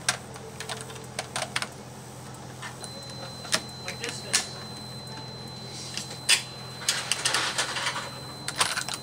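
Irregular sharp clicks and clatter of the rifle and suppressor being handled, densest near the end, with a faint steady high whine underneath.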